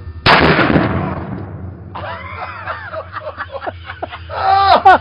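A single loud gunshot about a quarter second in, its blast dying away over a second or so, followed by excited voices.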